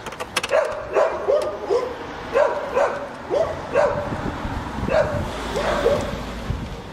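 A dog barking repeatedly in short barks, about two a second, with a few sharp clicks near the start.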